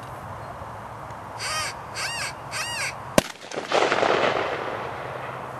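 Three loud caw-like calls about half a second apart, then a single sharp crack like a gunshot, followed by a louder rush of noise that fades out over about a second and a half: the bird station's call and shot sending out a duck for the retriever's mark.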